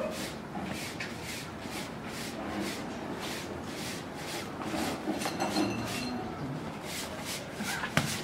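Short hand broom sweeping a dusty concrete floor: quick, even swishes of the bristles, about three strokes a second.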